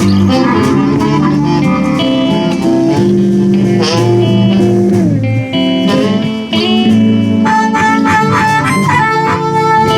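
Live blues band playing, with a guitar taking the lead in bent, sliding notes over the band.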